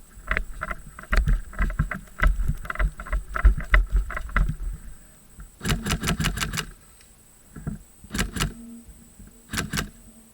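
Airsoft gun firing: a rapid burst of about seven sharp shots just before the middle, then two short bursts near the end. Before that, irregular low thumps and rustling of movement against the microphone.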